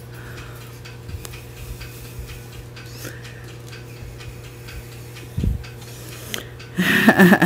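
A cat's fur and body rubbing against a phone held close, making soft scuffing and faint clicks, with a dull bump about five and a half seconds in.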